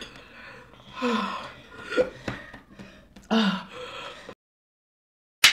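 A woman faking a choking fit: short strained gasps and throat-clearing noises, one about a second in and a louder one about three seconds in. The sound then drops out to dead silence, ending in a brief sharp burst.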